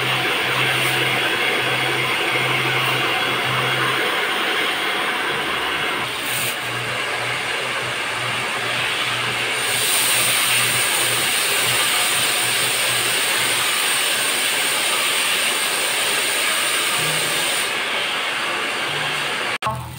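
Handheld hair dryer blowing steadily, its tone shifting slightly a couple of times, then cutting off abruptly near the end.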